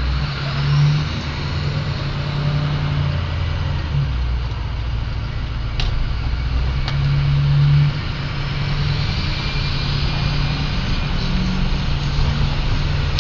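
Straight-piped 6.0 Powerstroke turbo-diesel V8 running, its exhaust rumbling and swelling twice. A high turbo whistle rises over the rumble, from a 10-vane 2003 Ford turbo fitted in place of the stock 13-vane. Two sharp clicks come in the middle.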